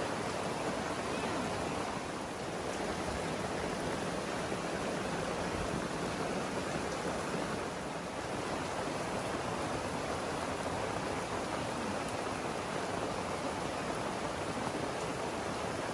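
Steady rain pouring down, an even, continuous hiss.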